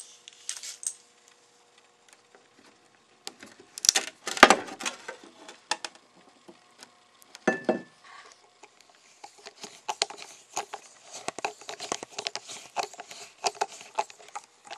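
Hands handling a plastic metal-detector search coil and its cable: scattered clicks and light rattles of plastic parts, with a couple of sharper knocks about four seconds in and a quick run of small clicks and taps in the second half.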